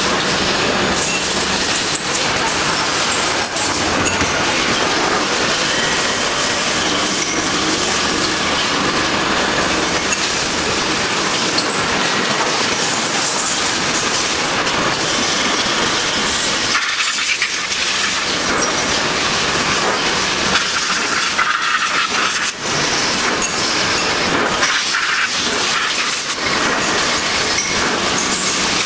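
CNC lathe turning a cast metal part under a coolant stream: a steady rushing hiss of cutting and spraying coolant, with scattered clinks of metal chips.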